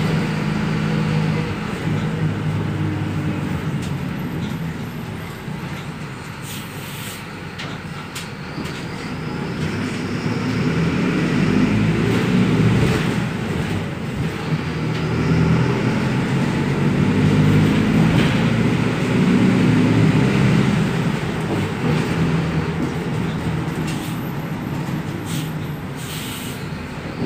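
Mercedes-Benz LO 916 BlueTec 5 minibus's four-cylinder turbodiesel engine running under way. The engine note swells and eases off twice as the bus pulls, with a few sharp clicks and rattles from the bus.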